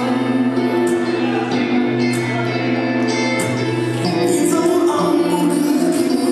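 Rumba dance music with a bass line, held melody notes and regular percussion hits.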